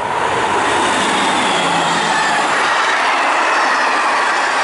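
MARC commuter train of bilevel coaches passing close at speed: a steady, loud rush of wheels on rail, with faint high squeals from the wheels.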